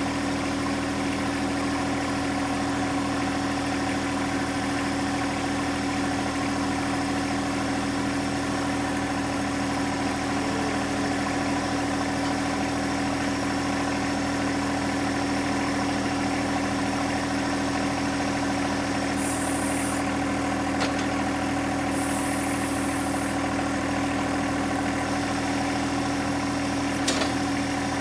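John Deere 1025R compact tractor's three-cylinder diesel engine idling steadily. Two brief clicks, the louder one near the end.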